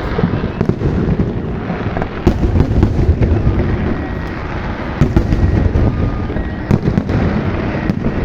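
Fireworks display going off: a continuous rumble of booming shell bursts with sharp bangs and crackles scattered throughout.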